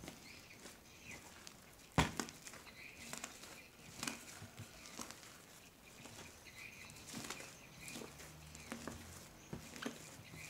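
A hand squeezing and kneading slime mixed with white foam, giving irregular soft squishing and crackling, with one sharper pop about two seconds in.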